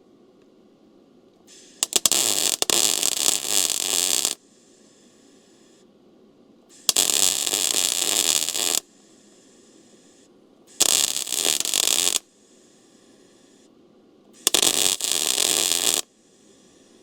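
MIG welding arc crackling on a steel truck frame in four bursts of about one and a half to two and a half seconds each, separated by pauses. A fainter hiss comes just before and after each burst.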